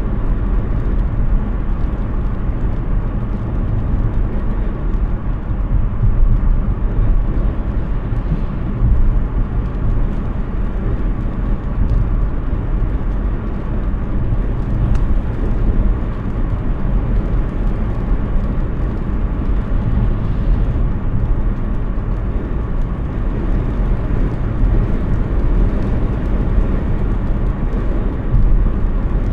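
Steady road and tyre rumble of a Hyundai Ioniq 6 electric car driving along, with a faint steady hum over it.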